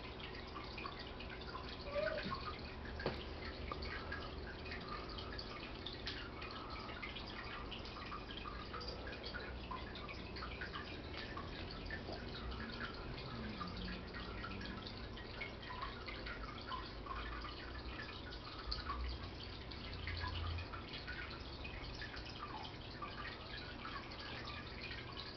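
Aquarium water steadily trickling and splashing, with many small irregular drips, over a low steady hum.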